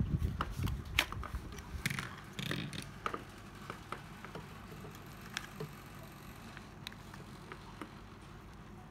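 Sharp plastic clicks and knocks from a used Makita 12V cordless screwdriver being handled, thickest in the first three seconds, then a few faint ticks.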